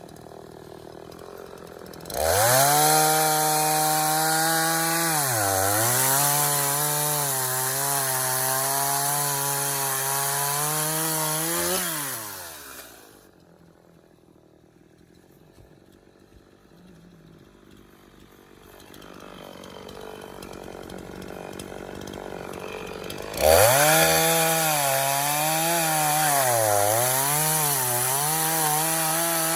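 Echo two-stroke chainsaw revving up about two seconds in and cutting through an oak log, its engine pitch dipping as the chain loads up in the wood. It drops back to a faint idle for about ten seconds, then revs up and cuts again near the end, the pitch sagging several times under load.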